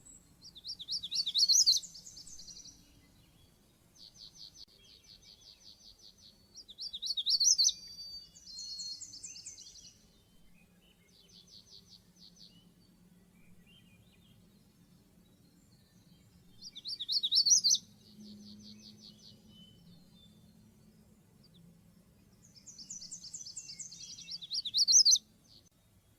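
Magnolia warbler singing: short, high phrases of rapid repeated notes, repeated several times, with four louder songs and quieter trills in between.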